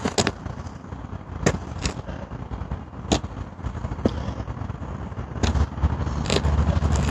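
Low, uneven outdoor rumble that grows louder near the end, with a few sharp clicks and knocks scattered through it.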